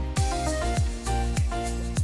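Background music with a steady beat: a kick drum about every 0.6 s under held melodic notes.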